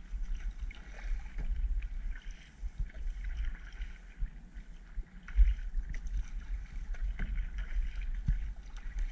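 Kayak paddling: water splashing and trickling around the paddle and hull, with small irregular ticks. A gusty low wind rumble runs on the microphone throughout.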